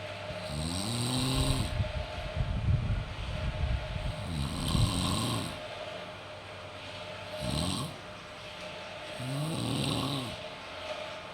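A person snoring: about five separate snores at uneven intervals of two to three seconds. Each snore carries a pitched drone that rises and then falls, and one is rough and fluttering.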